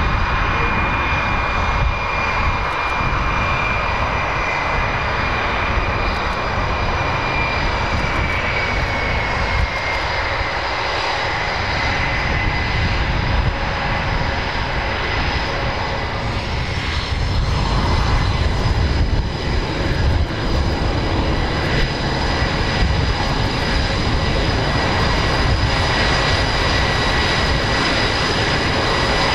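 Boeing F/A-18 Super Hornet's twin General Electric F414 turbofans at low taxi power: a steady jet whine and rush. Its high tone slides slightly lower about eight seconds in, and the sound swells a little past the middle as the jet turns.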